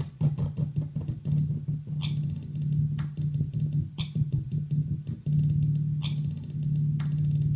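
Music: a sustained low bass note under a sharp percussive hit about once a second, with a quick run of rapid hits in the first two seconds.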